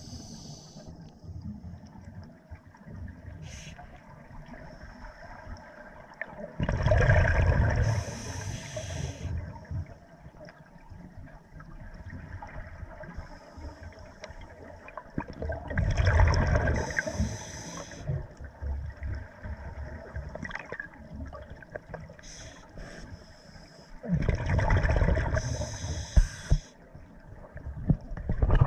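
Scuba diver's exhaled bubbles rushing and gurgling from the regulator underwater, three breaths about nine seconds apart, with a low underwater wash between them.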